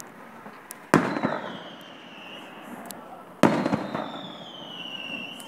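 Aerial firework shells bursting: two sharp bangs, about a second in and again about two and a half seconds later, each followed by a rolling echo and a high tone sliding slowly down.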